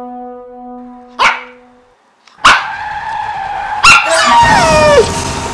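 Cartoon sound effects: a dog barking sharply a few times, then tyres skidding and a dog's yelp that falls steeply in pitch near the end, the dog struck by the car. A held horn-like tone fades out at the start.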